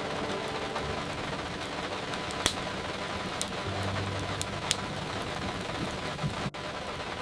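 Steady rain hiss mixed with the crackle of a fireplace, a few sharp pops standing out. There is a brief dropout near the end.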